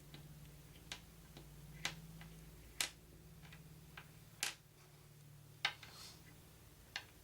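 Small plastic game dice being turned over and set down on a table, giving about six sharp clicks roughly a second apart with a few lighter ticks between, over a faint low hum.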